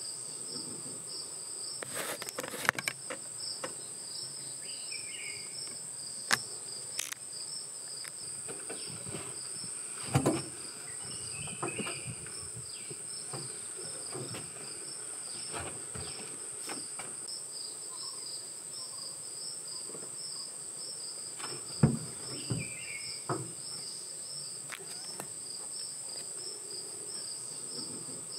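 A chorus of forest insects shrilling continuously in two high tones, one of them pulsing evenly. A few sharp knocks stand out over it, the loudest about ten and twenty-two seconds in.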